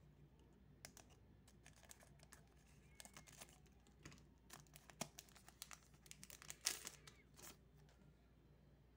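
Foil wrapper of a Magic: The Gathering booster pack crinkling and tearing as it is opened by hand: a string of short, quiet crackles, with the sharpest one about three-quarters of the way through.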